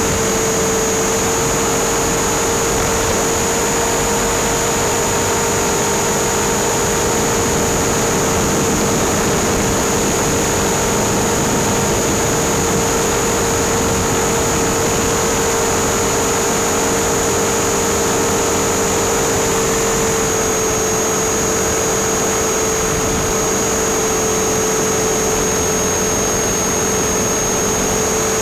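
Radio-controlled helicopter's motor and rotor heard from its onboard camera: a steady, even whine over a rushing noise, holding one pitch throughout.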